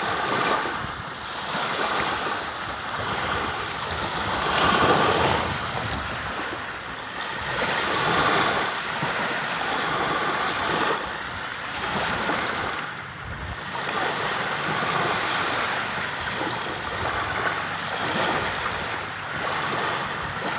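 Sea waves breaking and washing in, the noise of the surf swelling and falling back every few seconds, loudest about five seconds in.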